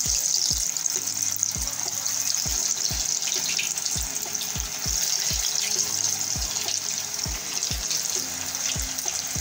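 Slabs of gram-flour tatvadi deep-frying in hot oil in a kadai, a steady sizzle, over background music with a steady beat of about two thumps a second.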